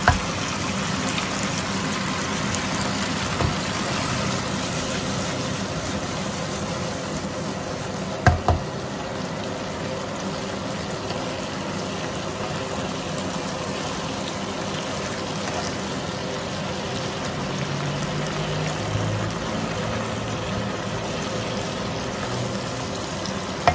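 A saucy stir-fry of squid, prawns and vegetables bubbling and sizzling steadily in a non-stick wok as it is stirred with a plastic spatula. A sharp knock of the spatula on the pan comes about eight seconds in.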